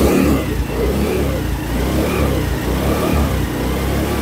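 Honda Dio 125 scooter's single-cylinder four-stroke engine running, heard close to its exhaust muffler, the note swelling and easing a few times. A smooth exhaust sound.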